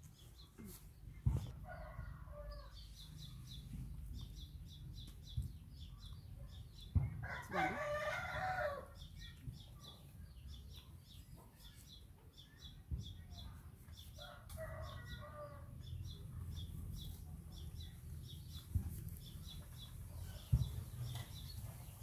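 Roosters crowing three times: a faint crow about two seconds in, the loudest near the middle, and another a little past the halfway mark. A steady high chirping runs underneath, with a few sharp knocks.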